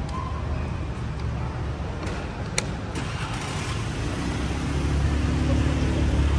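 Motor vehicle engine running over a steady low rumble, getting louder and steadier from about four seconds in; a single sharp click about two and a half seconds in.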